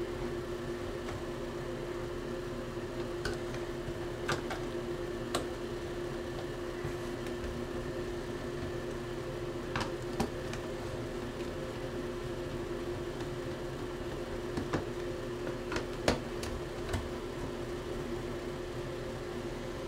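A steady background hum, with scattered sharp clicks and taps as Phillips screws are worked out of the plastic base of a small ultrasonic cleaner with a screwdriver.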